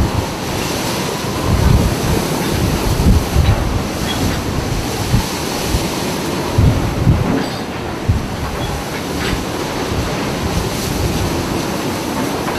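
Steady rumbling, rushing noise of a moving vehicle, with irregular low thumps like wind buffeting the microphone.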